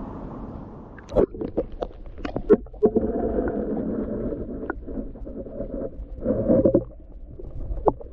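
Muffled water sloshing and gurgling around a camera held underwater in a lake, with a quick series of sharp knocks about a second in and a longer rush of water noise a few seconds later.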